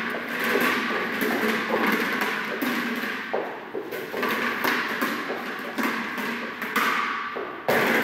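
Rubber ball thudding as it is bounced and dropped on a padded floor, several sharp thumps over a steady clatter of movement, the loudest thump near the end.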